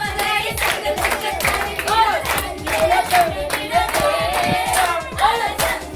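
A group singing with steady rhythmic hand clapping.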